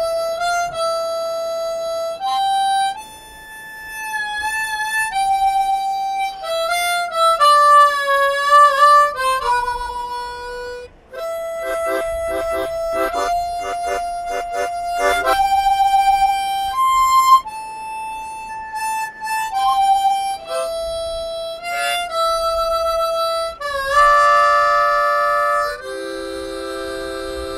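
Solo harmonica playing a slow melody of held notes, some bent up and down in pitch, with a passage of fast repeated notes about halfway through and chords near the end.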